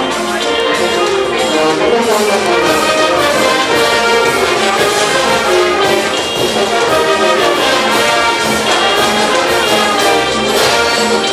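Live village brass band playing dance music, with trumpets and trombones over a steady drum beat.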